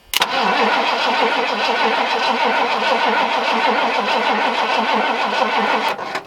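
Starter cranking the Ford work truck's gas engine: a click as it engages, then about six seconds of steady rhythmic cranking that does not catch and stops suddenly. The truck has an electrical fault that had stopped the starter working.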